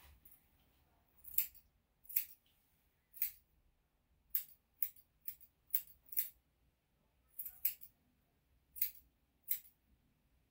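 About a dozen sharp snips from a grooming cutting tool working at a Yorkshire terrier's feet, spaced irregularly, some in quick pairs.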